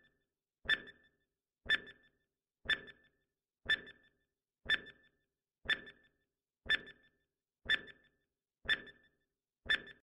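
Countdown-timer sound effect ticking once a second, about ten times: each tick is a sharp click with a brief high ring.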